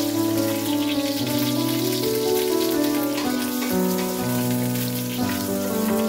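Cardamom pods and a cinnamon stick frying in hot oil, a steady crackling sizzle, over background music with long held notes that change about every second.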